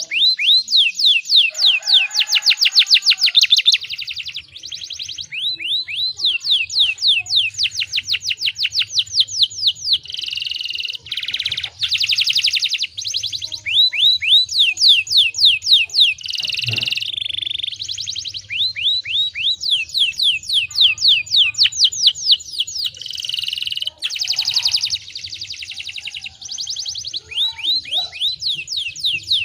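Domestic canary singing long trilled phrases of rapid, repeated down-slurred notes, roughly ten a second, switching from one trill to the next with brief breaks. A faint low hum runs underneath from a few seconds in.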